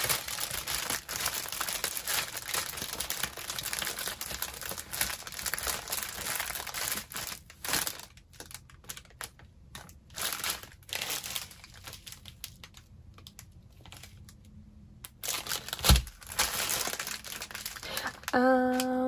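Plastic packaging and drill bags crinkling and rustling as a diamond painting kit is unpacked: dense crinkling at first, then scattered clicks and rustles. A single loud thump comes about sixteen seconds in, and a brief hum of a voice near the end.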